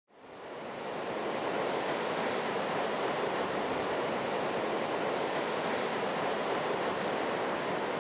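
Ocean surf washing onto a beach: a steady rush of breaking waves that fades in over the first second.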